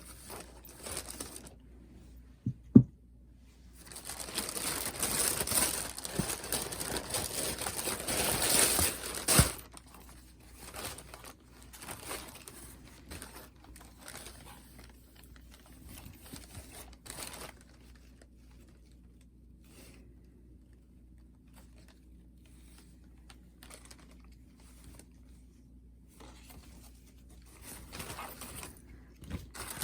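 Packaging being handled and unwrapped by hand: crinkling and rustling. There is a sharp click a little under three seconds in, then a dense stretch of crinkling for about five seconds, then scattered quieter rustles and more crinkling near the end.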